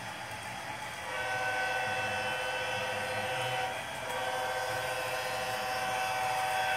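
Bachmann HO scale diesel locomotive model's DCC sound decoder playing an air-horn sound through its onboard speaker: a long blast starting about a second in, a short break, then a second long blast, over a low steady rumble.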